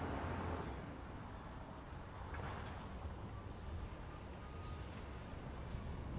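Steady low outdoor background rumble, with a few faint high chirps about halfway through.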